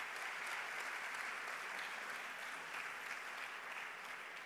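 Audience applauding steadily in a large hall, easing off slightly near the end.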